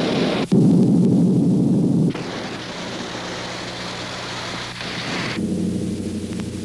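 A loud, deep explosion rumble breaks in about half a second in and lasts about a second and a half. It is followed by quieter, steady rumbling noise with a low hum, which swells again a little past the middle.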